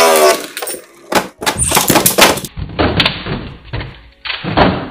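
Beyblade Burst spinning tops battling in a plastic stadium: a run of sharp, irregular clacks and knocks as the tops strike each other and the stadium wall, over the rattle of their spinning.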